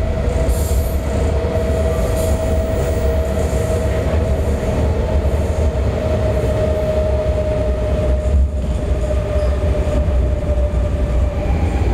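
Interior of an MTR Adtranz-CAF electric train running through a tunnel: a steady low rumble of wheels on rail under a constant whine that drifts slightly lower in pitch as the train nears its terminus, with a second, higher whine joining near the end.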